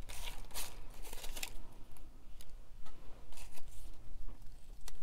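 Paper and fabric craft materials being handled on a tabletop: a string of short rustles, scrapes and taps at irregular intervals.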